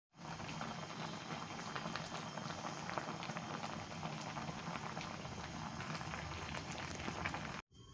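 Pot of soup at a rolling boil: steady bubbling with a patter of small pops, cutting off suddenly near the end.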